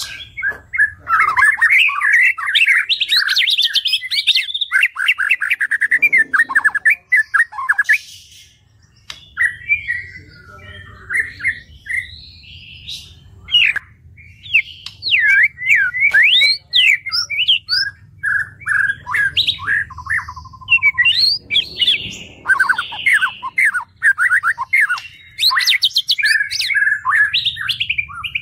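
White-rumped shama (murai batu) singing a long, varied song of quick whistled phrases and rattling trills, broken by a couple of short pauses.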